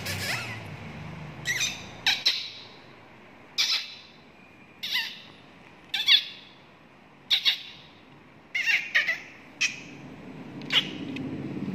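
Persian kittens mewing: short, high-pitched mews repeated about once a second.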